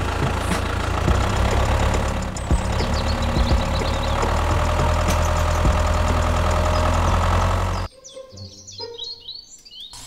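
Tractor engine sound with a low, rhythmic chug, running steadily and then cutting off abruptly about eight seconds in, with birds chirping behind it.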